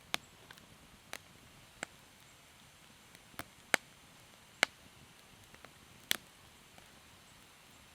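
Campfire crackling: sharp, irregular pops from burning wood over a faint steady hiss, as the newly lit fire gets going.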